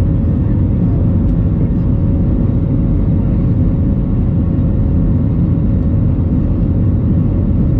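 Airbus A321 cabin noise in the climb after takeoff: a steady, loud, low roar of engines and airflow, with a thin steady hum running through it.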